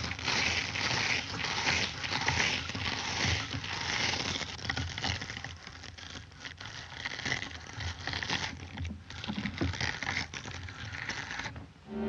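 A dense rustling, scraping noise full of small clicks, weaker past the middle, that cuts off abruptly near the end.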